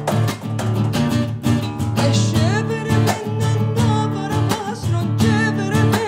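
Steel-string acoustic guitar strummed in a steady rhythm as accompaniment to a Cypriot folk tune. A woman's voice comes in singing about two seconds in, with a wavering, ornamented line.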